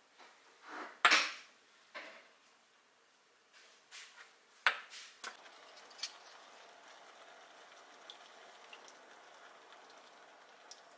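A few sharp clinks of utensils against a pot, the loudest about a second in, then enoki mushrooms simmering in their seasoning liquid for nametake with a faint, steady bubbling sizzle from about five seconds in.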